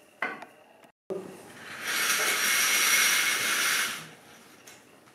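Stage curtains being drawn closed, their runners sliding along the rail with a loud, even hiss. One pull starts about two seconds in and lasts about two seconds; another starts right at the end.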